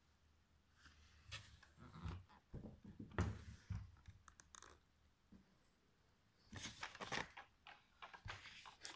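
Irregular clicks, crinkly rustles and light knocks of things being handled, in two spells with a pause of about two seconds between them.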